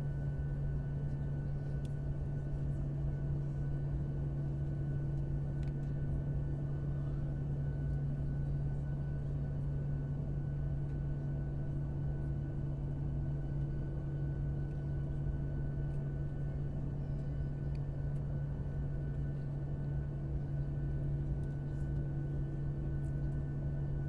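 Airliner cabin noise in flight: a steady, unchanging drone of engines and airflow, a deep hum with a few fainter steady tones above it.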